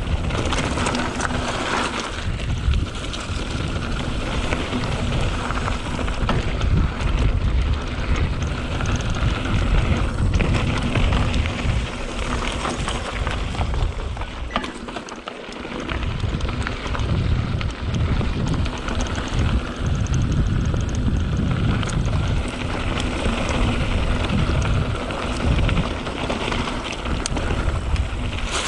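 Wind buffeting the microphone over a Canyon Spectral trail bike riding down a dirt trail: tires rolling and the bike rattling, with many small clicks and knocks. There is a brief lull about halfway through.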